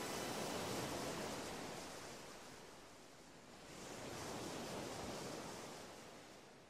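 Soft, even rushing noise that swells, dies down, swells again and fades out near the end, like surf.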